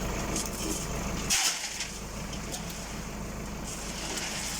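Tractor engine running steadily while driving a PTO-mounted concrete mixer, with a short hiss about a second and a half in.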